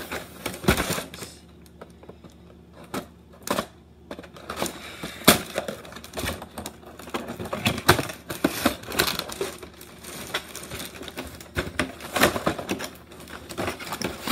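Cardboard toy-blaster box handled and pried at by hand: irregular clicks, taps and short scrapes of fingers and cardboard as the packaging is worked open.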